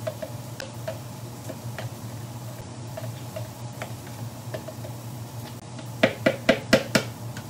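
A utensil stirring food in a mixing bowl, with light scattered clicks against the bowl, then about six sharp taps in quick succession around six seconds in, over a low steady hum.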